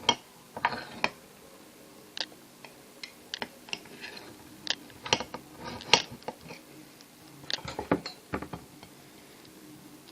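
Scattered light clicks and clatter of a plate and utensils being handled, a couple of dozen irregular knocks.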